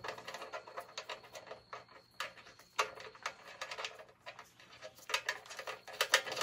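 Light, irregular clicks and taps of small steel hardware being handled by hand: a spring washer and lock nut being fitted onto a bumper-bracket bolt. The clicks come thicker near the end.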